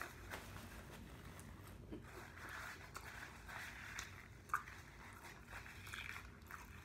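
Faint mukbang eating sounds: quiet chewing and small clicks and rustles as chicken wings are picked at by hand. One short, sharper sound comes about four and a half seconds in.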